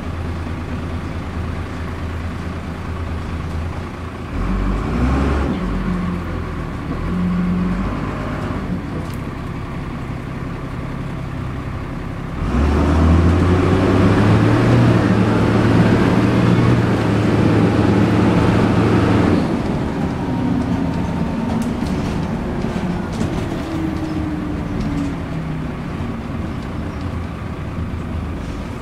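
Dennis Dart single-deck bus's diesel engine and drivetrain heard from inside the passenger saloon, running steadily at first. The revs change about four seconds in, then it pulls harder and louder for several seconds from about twelve seconds in before easing off with falling pitch.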